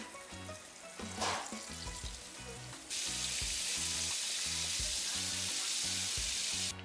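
Flour-coated fish frying in hot oil in a skillet. The sizzle is soft at first, with a brief louder flare about a second in, then becomes a loud, steady sizzle from about three seconds in. Faint background music with a steady beat plays underneath.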